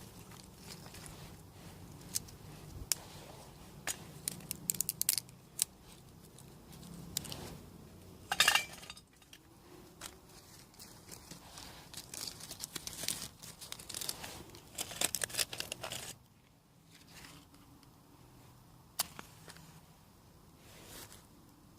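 Dry twigs being snapped and birch bark torn and crinkled by hand while a small twig stove is readied for lighting: a string of sharp snaps and crackles, with one louder half-second burst about eight seconds in and a busy run of snapping in the middle. It grows quieter for the last few seconds, with only the odd click.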